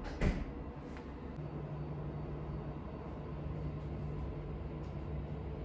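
Steady low machine hum, with a steady low tone joining it after about a second and a half. One sharp knock comes shortly after the start.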